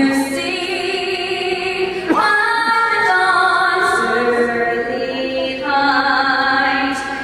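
A woman singing the national anthem solo into a handheld microphone, in long held notes, gliding up to a new note about two seconds in.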